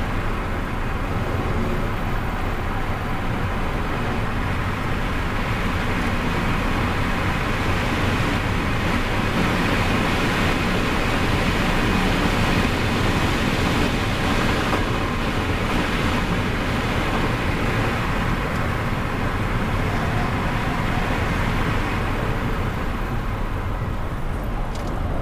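Onboard sound of an electric performance car lapping at speed on a race track: steady, loud wind and tyre noise.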